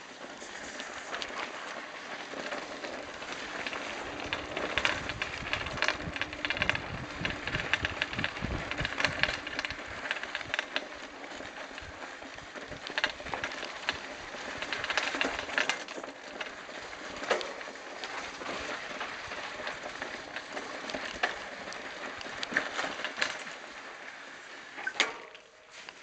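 Mountain bike tyres rolling over sand and gravel, a continuous crunching crackle dense with small clicks and knocks as the bike rattles over stones. The sound drops away near the end.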